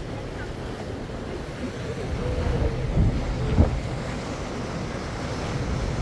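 Wind buffeting the microphone on a moving boat, over a low rumble of the boat and water rushing past the hull. Two short, heavier gusts thump about three seconds in.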